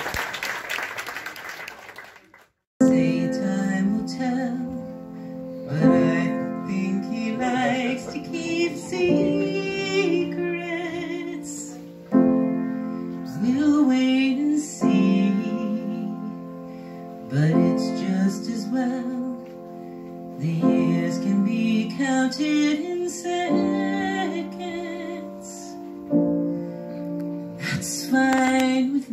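Audience applause for about two seconds, cut off abruptly. Then a woman sings a slow ballad, accompanying herself on a grand piano with sustained chords.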